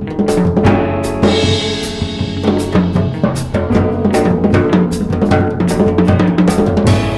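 Background music with a drum kit playing a steady beat.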